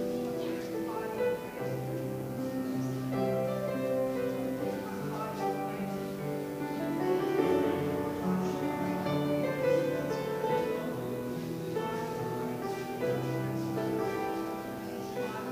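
Instrumental music with held notes and moving chords.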